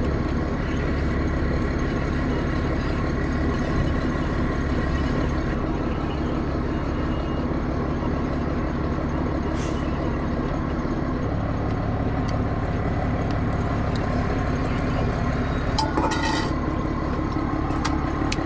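A boat engine running steadily, a constant low drone with a steady hum of tones. Its note shifts slightly about eleven seconds in, and there is a brief clatter about sixteen seconds in.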